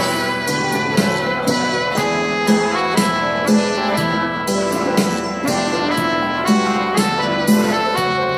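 Electronic arranger keyboard played with both hands, a melody over chords with a regular beat of about two strokes a second.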